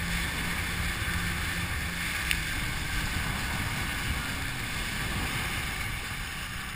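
Motorboat running at speed, with rushing water and spray and wind buffeting the microphone. A steady low engine hum underneath drops out about two and a half seconds in, and the noise eases a little near the end.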